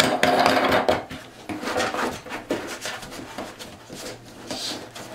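Clicks, taps and rubbing of a hard plastic tote and its plastic bulkhead fitting as the fitting's nut is threaded on by hand. The handling is loudest in the first second, then goes on as scattered lighter clicks.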